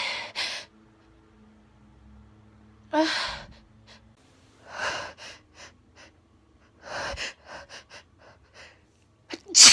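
A woman's gasping, hitching breaths as a sneeze builds: a few sharp inhales, then a string of short catches in the breath. It breaks into a sneeze right at the end.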